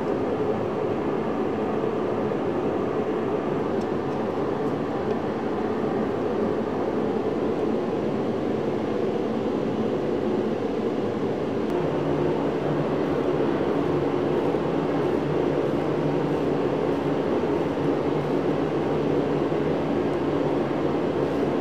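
Steady, even rushing noise of running machinery in the workshop, with a faint click about four seconds in.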